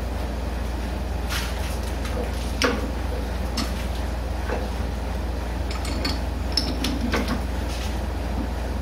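Metal lathe facing the end of a 2.5-inch bar of 1144 stress-proof steel: a steady motor hum with scattered sharp ticks of the cut, the loudest a little under three seconds in.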